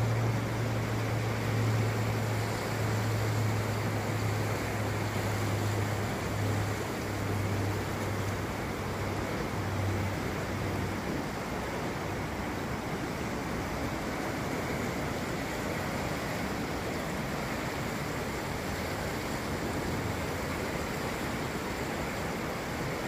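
Steady rushing of a large river in flood, swollen and muddy after heavy rainfall. A low hum runs under it for about the first ten seconds and fades out.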